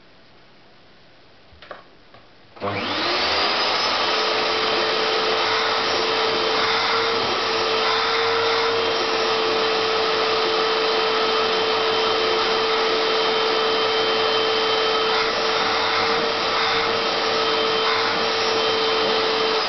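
Vacuum cleaner (hoover) switched on about two and a half seconds in, after a faint click. Its motor spins up quickly, then runs steadily with a constant whine over a loud rush of air.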